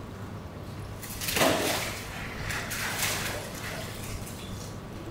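Water splashing and sloshing in a polar bear pool: a rushing splash about a second in, then a few smaller splashes.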